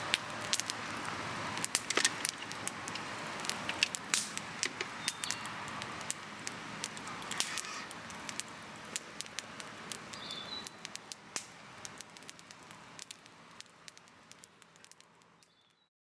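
Wood fire crackling, with sharp pops and snaps scattered irregularly throughout. It fades out gradually over the last several seconds to silence.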